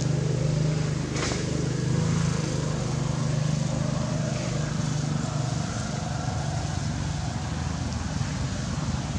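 Steady low hum of an engine running, constant throughout over a light outdoor background hiss.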